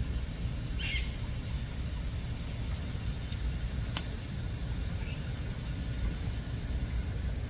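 Steady low outdoor rumble, with a short high chirp about a second in, a fainter one about five seconds in, and a single sharp click about four seconds in.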